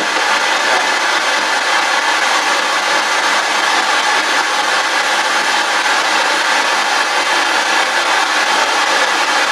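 Spirit box sweeping through radio stations: a loud, steady hiss of radio static with no break.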